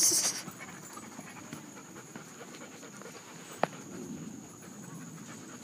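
Dog panting, with a short burst of hiss at the start and a single sharp click about three and a half seconds in.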